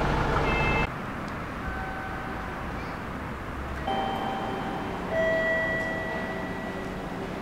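Electronic chime ringing in a station ticket hall: a faint tone about a second and a half in, then a higher note followed about a second later by a lower one, each ringing on and fading over a steady background hum. The first second holds a louder noise that cuts off sharply.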